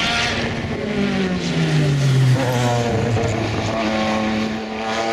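Jaguar XJR-16's 3-litre twin-turbo V6 going by at racing speed. Its note falls steadily about a second in as the car slows for the corner, then climbs again as it accelerates away on the exit.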